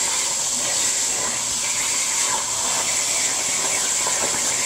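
CNC plasma cutter's torch cutting through steel plate: a steady, loud hiss with a high-pitched whine on top.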